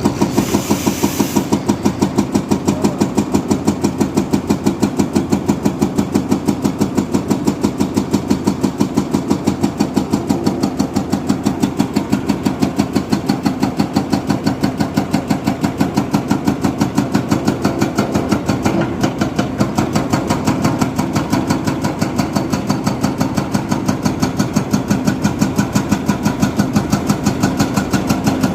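Diesel engine of heavy machinery running at a steady speed with a fast, even chugging pulse. A short hiss comes in the first second or so.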